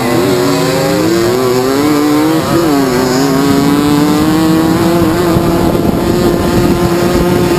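Two-stroke moped engine racing at high revs. Its pitch climbs, dips briefly about two and a half seconds in, then rises again and holds steady and high.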